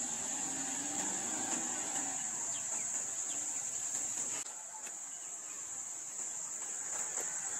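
Steady, high-pitched drone of insects in roadside forest, unbroken throughout, with fainter low sounds under it in the first few seconds.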